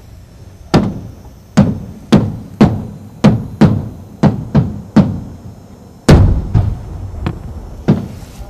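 Fireworks display: shells bursting one after another, about two sharp bangs a second, each trailing off in echo, with the loudest burst about six seconds in.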